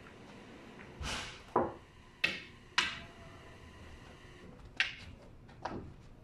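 Pool cue tapping the cue ball and billiard balls clacking together on a pool table: a few sharp clacks spread out, with a brief rustling scrape about a second in.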